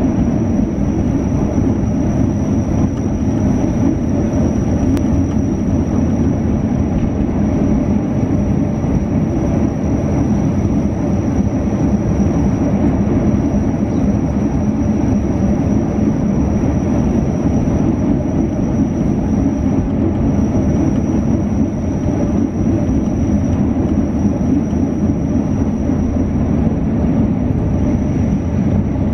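Steady running noise of a moving train heard from inside the passenger carriage: an even rumble of wheels on track, with a thin high tone held steady above it.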